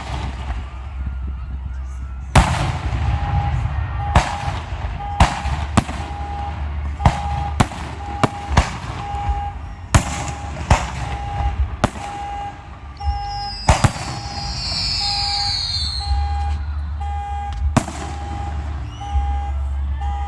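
Aerial fireworks bursting, about fourteen sharp booms at uneven intervals over a low rumble. A whistle falls in pitch around the middle. From a few seconds in, an electronic beep repeats about twice a second.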